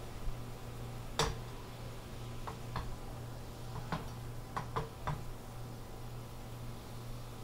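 About seven light, sharp clicks and taps at irregular intervals from a frying pan where a soy-sugar seasoning sauce is being reduced, over a steady low hum.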